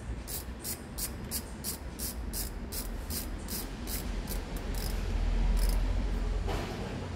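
Repeated short scraping strokes, about three a second, stopping about five seconds in, over a low rumble that swells near the end.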